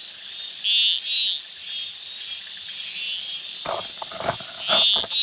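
Frogs calling at night: short, pulsed high-pitched calls, the loudest twice about a second in and again near the end, over a steady high-pitched frog or insect chorus. A few short knocks come about three-quarters of the way through.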